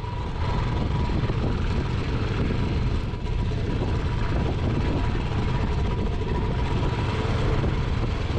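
Motorcycle engine running steadily while riding a rough gravel track, mixed with wind and road noise on the microphone.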